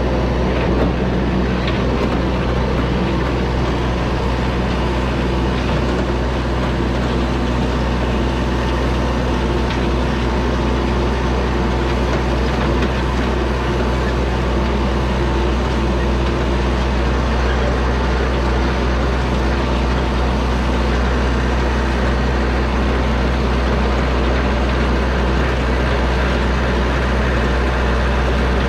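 Yanmar compact tractor's diesel engine running at a steady speed as the tractor drives along, an even drone that does not change.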